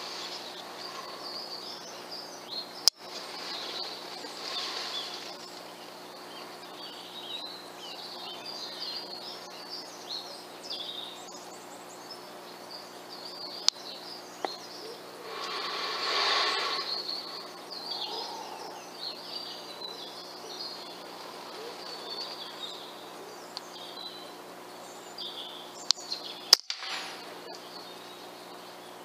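Small birds chirping and singing throughout. Two sharp cracks from an FX Streamline PCP air rifle cut through, one about three seconds in and one near the end, the second with a couple of smaller clicks just before it. There is a brief rush of noise about midway.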